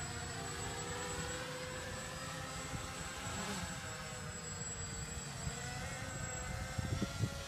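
Radio-controlled scale model of a Canadair CL-84 tilt-wing aircraft, its propellers and motors droning steadily in flight, the pitch drifting slightly up and down. A few light knocks near the end.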